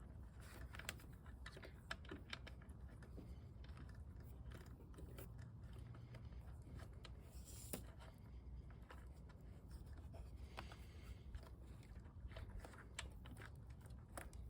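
Faint, scattered small clicks and taps from hands threading a turn-signal light onto its mounting bolt, over a low steady room hum.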